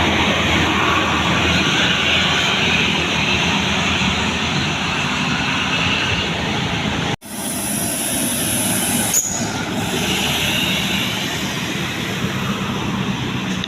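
Steady road noise of heavy traffic: a low rumble with hiss. It breaks off for an instant about seven seconds in, then resumes.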